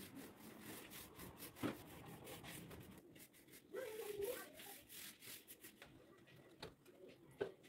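Faint strokes of a paintbrush rubbing a finish onto wooden bed slats, with a couple of light knocks. About four seconds in, a brief faint wavering pitched sound.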